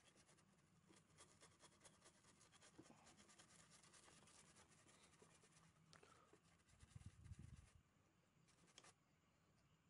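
Faint, steady scratching and scrubbing of a tool on a car ECU's circuit board, cleaning off corrosion, with a brief low bump about seven seconds in.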